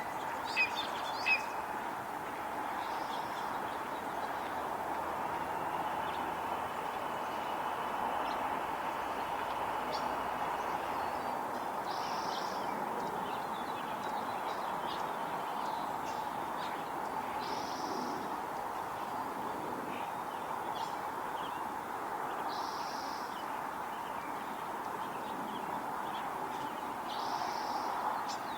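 Red-tailed hawk giving short, high calls over a steady background noise: five calls, the last four about one every five seconds.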